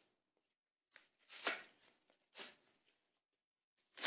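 Dry twigs and kindling being handled at a wood-fire hearth while a fire is laid: three short rustling, crackling scrapes.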